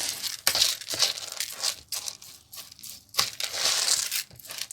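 Minced meat and washed rice being mixed together in a bowl for stuffing: a run of irregular rustling, squelching strokes.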